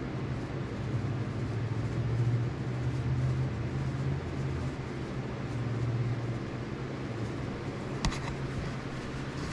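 Steady low mechanical hum that swells for a few seconds and eases back, with one sharp click near the end.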